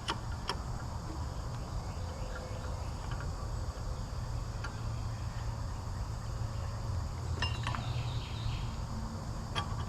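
Steady insect chirring over a low hum, with a few light metallic clinks, a cluster of them about seven and a half seconds in.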